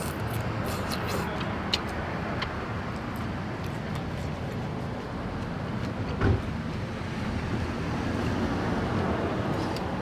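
Steady low rumbling background noise, with a few faint clicks and one short thump about six seconds in.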